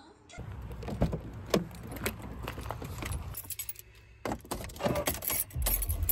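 Car keys jangling and clicking as a key is put into the ignition and turned; near the end a low rumble comes up as the car's engine starts.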